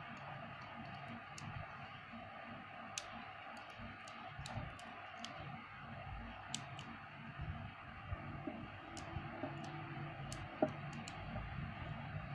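Small neodymium magnet spheres clicking as they snap onto a hand-held cluster of balls: sharp single clicks at irregular intervals, one louder near the end, over a faint steady background hum.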